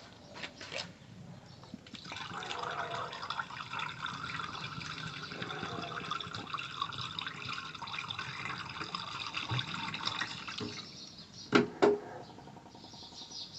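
G13 coolant being poured into a car's cooling system, a steady stream of liquid starting about two seconds in and stopping about eleven seconds in, followed by two short knocks.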